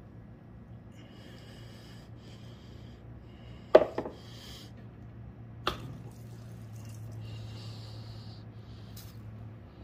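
Pliers clicking on spring hose clamps as the fuel line is worked off a riding mower's fuel filter: four sharp clicks, the loudest about four seconds in. Between them there is soft intermittent hissing over a low steady hum.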